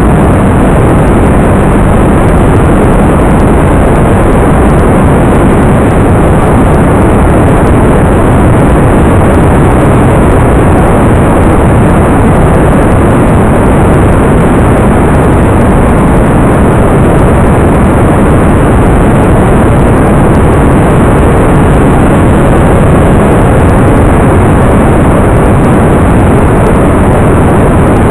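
Loud, steady rushing noise with no distinct motor note or separate sounds, of the kind an onboard camera picks up from wind and motor on an FPV model plane in flight.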